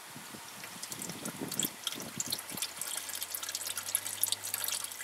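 Used engine oil draining in a thin stream from a pickup's oil pan into a drain pan, with irregular small dripping and splattering ticks that come thicker after about a second.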